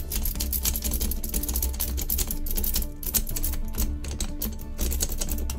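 Rapid, irregular metallic clicking and rattling as a key and metal parts are worked inside a heavy puzzle padlock.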